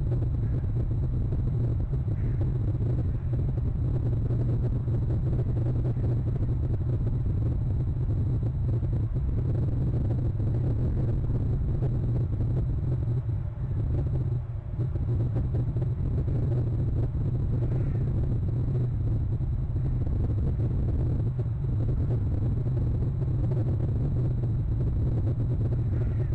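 Steady low rumble with a hiss above it, as from wind or background noise on an outdoor nest-camera microphone, dipping briefly about 14 seconds in.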